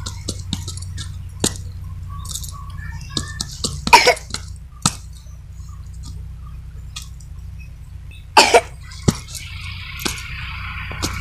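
Hands patting and pressing wet cow dung into flat dung cakes on the ground: scattered small slaps and rustles, with two louder short bursts about four and eight and a half seconds in.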